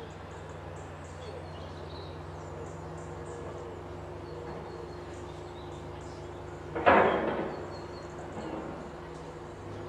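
Faint, scattered bird chirps over a steady low mechanical hum, with one sudden, louder noise about seven seconds in that dies away within half a second.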